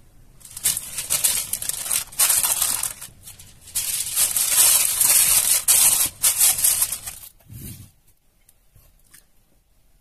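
Sheet of aluminium foil crinkling and rustling in several loud bouts as it is pulled and pressed down over a glass baking dish. Near the end there is a single dull knock, then only faint ticks.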